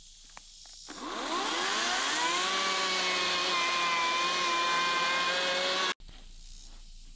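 Ryobi cordless electric chainsaw spinning up with a rising whine, then running at a steady high pitch as it cuts into a log, its pitch wavering slightly under load. The sound cuts off suddenly about six seconds in.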